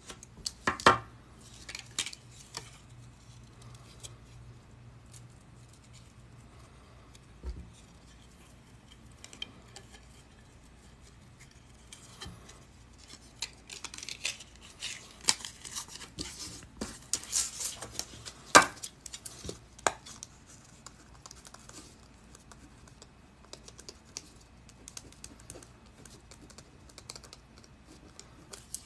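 Irregular small metallic clicks and clinks as paperclip jump rings are worked with pliers and a chainmail piece is handled, with a stretch of rustling and denser clicking around the middle.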